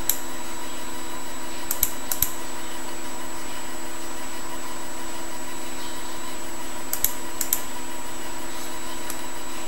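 Steady electrical hum with several fixed tones, broken by short clicks: a pair about two seconds in, another pair about seven seconds in, and one near the end, like clicks at a computer desk.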